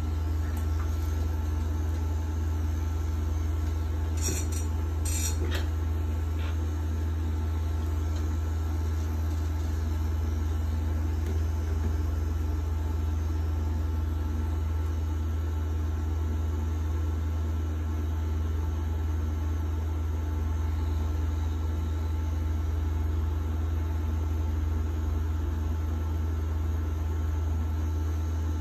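Pen-style rotary tattoo machine running steadily with a low, even hum. A couple of brief clicks sound about four and five seconds in.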